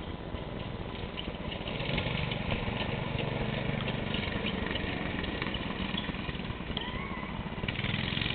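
Small engine of a Muskin Dune Cat mini buggy running under way, its pulsing note getting louder about two seconds in, with scattered clicks and rattles over it.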